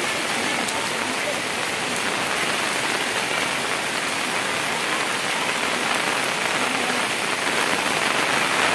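Heavy rain falling steadily, an even hiss without a break.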